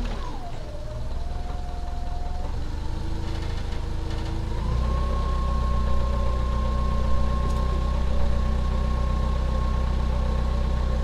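Forklift engine running with a whine that glides down just after the start; about five seconds in the engine speeds up and a steady, higher whine sets in as the lift is worked to move a hanging engine.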